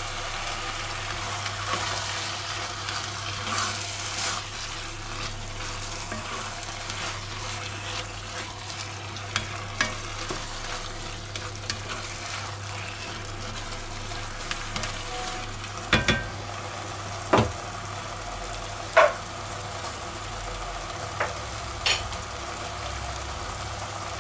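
Diced vegetables and chopped tomatoes sizzling in an enamelled cast-iron pot as they are stirred with a spatula. Four sharp knocks of the spatula on the pot come in the second half.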